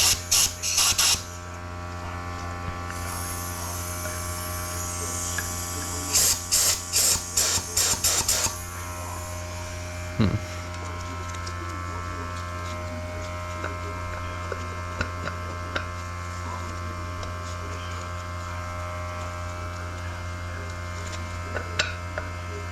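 Short blasts of compressed air from a blow-gun nozzle, used to push a clutch piston out of a 4L60 transmission's drum. There is a cluster of blasts at the start and about six quick ones between six and eight seconds in, over a steady electric hum of the running air compressor.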